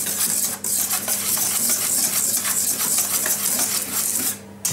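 Dry flour, caster sugar and cocoa powder being whisked by hand in a stainless steel bowl: fast, continuous scraping and rustling, with the utensil ticking against the metal. It pauses very briefly about half a second in and again just before the end, over a steady low hum.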